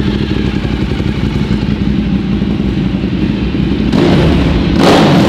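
Ducati Diavel's L-twin engine idling with a steady low pulse, growing louder about four seconds in.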